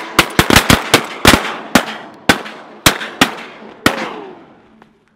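A rapid volley of shotgun shots from several guns, about a dozen in under four seconds. The shots come in quick succession at first and then more spaced out, each with a short echoing tail.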